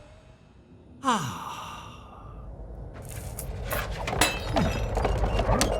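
A cartoon character's voice lets out a short sigh with a falling pitch about a second in. From about three seconds on, a busy clatter of clicks and noise builds up.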